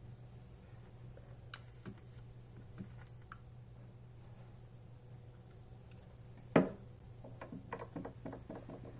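Sketchbook being handled in a small room: a few light clicks, a sharp knock about six and a half seconds in, then a quick run of small ticks and taps, over a steady low hum.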